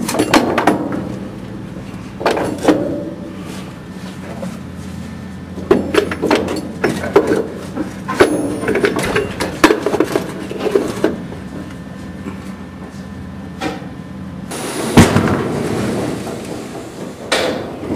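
Irregular metal clanks and knocks of tools and parts being worked on a truck's front suspension by the coil spring, in bursts, with the loudest bang about fifteen seconds in. A steady low hum runs underneath.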